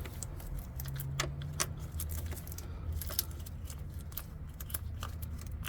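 Irregular small metallic clicks and clinks of a nut being worked off a stud and small metal parts being handled, over a steady low hum.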